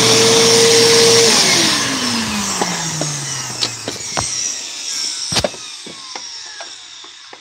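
Bissell CleanView Helix Deluxe vacuum's motor running with the brush-roll belt taken off, then switched off and winding down: its whine holds for about a second, then falls steadily in pitch as it fades over several seconds. A few knocks from handling the machine as it spins down, the loudest about five seconds in.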